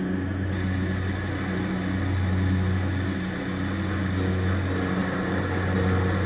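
Steady rushing of a GTT Cheetah glassworking torch flame together with the hum of the bench's inline exhaust fan. The low hum swells and fades every second or two.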